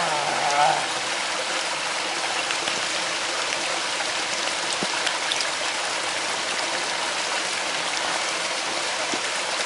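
Shallow creek water running over rocks: a steady rushing and trickling.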